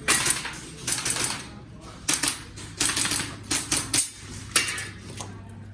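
Airsoft pistol fired in quick succession, mostly in close pairs of sharp clacking shots, about one pair a second.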